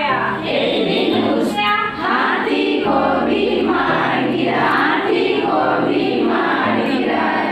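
A group of women singing a Hindi children's rhyme together in a steady rhythm, with low held notes underneath.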